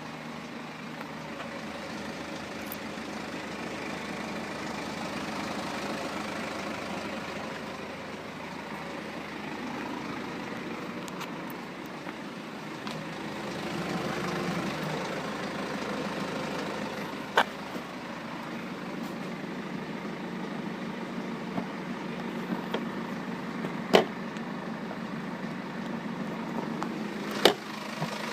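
BMW F10 520d's four-cylinder diesel engine running steadily, a sound the owner presents as timing chain noise. Three sharp clicks come in the second half.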